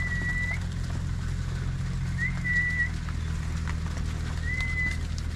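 A person whistling to drive cows along: three short, steady, high whistles a couple of seconds apart, over a constant low rumble.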